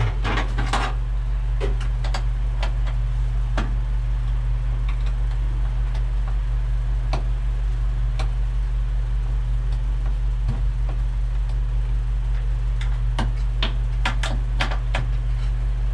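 Scattered small clicks and taps of hand-tool work fastening a relay socket in place, more of them near the end, over a steady low hum.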